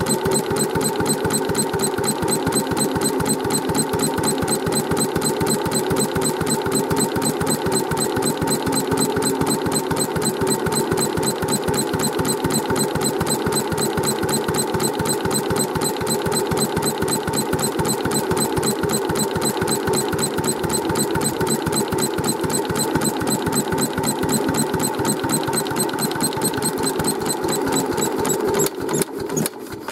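Vintage Kubota single-cylinder stationary engine, repaired after being submerged, running steadily with a fast, even firing rhythm. Near the end the beat breaks up and the sound cuts off.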